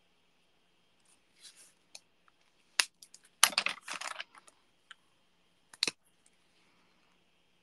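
A run of sharp plastic clicks and clatters, the loudest cluster about three and a half seconds in: marker pens being swapped, their caps and barrels clicking as they are put down and picked up.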